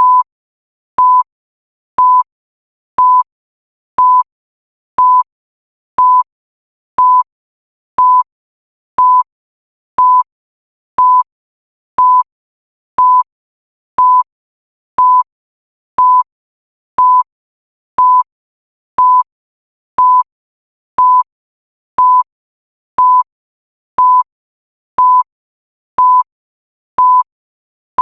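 Digital countdown timer beeping once a second: the same short, single-pitched electronic beep each time, with silence in between.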